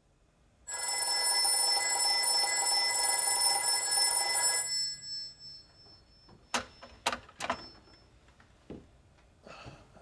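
Old telephone bell ringing once for about four seconds, a fast metallic trill, followed by a few sharp clicks and knocks as the handset is picked up.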